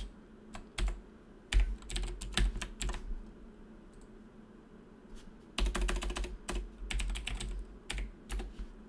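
Typing on a computer keyboard: two quick runs of keystrokes separated by a pause of about two seconds, then a few single key presses near the end.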